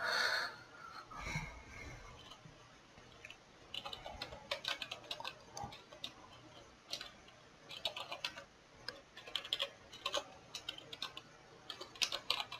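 Computer keyboard being typed on, in short runs of rapid keystrokes with pauses between them, starting a few seconds in.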